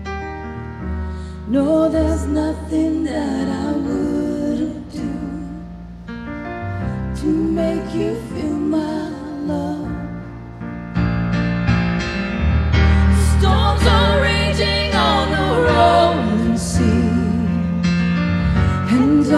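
Women singing a slow ballad live over piano accompaniment; about halfway through the singing grows louder and fuller.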